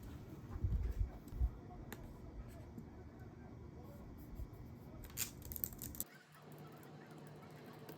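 Soft handling sounds: a few low thumps in the first second and a half, then scattered light clicks and taps, with the background changing abruptly about six seconds in.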